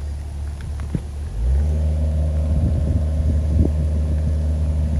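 Compact excavator's diesel engine running under load, its note rising and getting louder about a second in as it is throttled up to climb a steep slope, then holding steady at the higher pitch. Several metallic clanks from the machine come in the middle.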